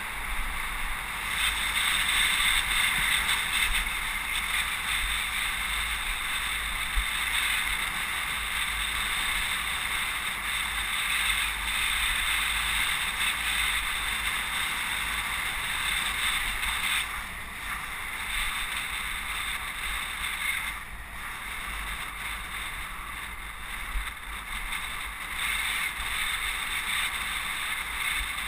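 Steady rush of wind buffeting a bicycle-mounted camera's microphone, with road and traffic noise from riding along a street among cars and trucks.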